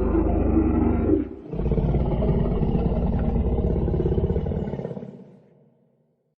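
Dinosaur roar sound effect: a deep growling roar that breaks off about a second in, followed by a second, longer roar that fades away about five seconds in.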